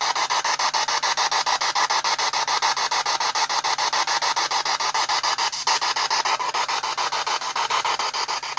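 P-SB7 spirit box radio sweeping through stations: a steady hiss of static chopped into rapid, even pulses, with a faint low hum under it.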